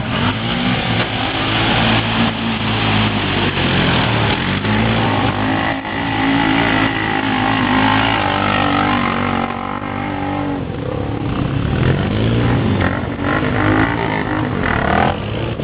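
ATV engine running and revving, its pitch rising and falling again and again as the throttle is worked.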